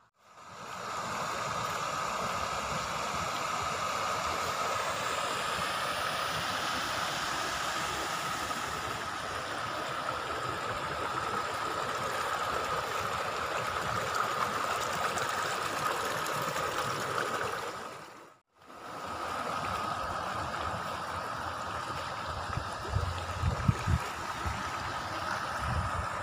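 Water flowing steadily in stone-lined irrigation channels, with a thin steady tone running over it. The sound cuts out briefly about two-thirds of the way through, and a few low thumps come near the end.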